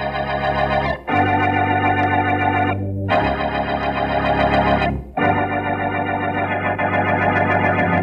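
Organ playing the radio drama's closing music: four held chords of about two seconds each, separated by brief breaks, the pitch wavering slightly.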